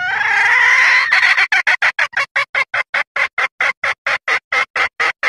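Junglefowl hen lure call: one long drawn-out squawk, then a quick, even run of clucks at about five a second. It is a hen's call to attract males for mating.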